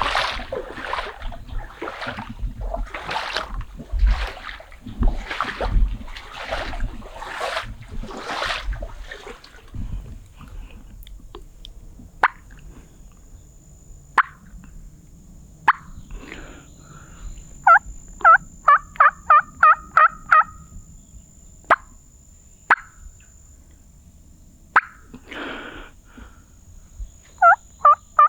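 Footsteps swishing through wet brush, about one and a half strides a second, stopping after about nine seconds. Then a few single turkey clucks and a quick run of about eight hen yelps, with more yelps near the end.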